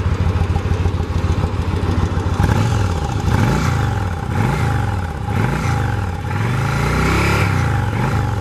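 2004 Yamaha V-Star 1100's air-cooled V-twin through its stock exhaust, idling and then revved in a series of throttle blips starting about two and a half seconds in, each rising and falling in pitch, with one held longer near the end.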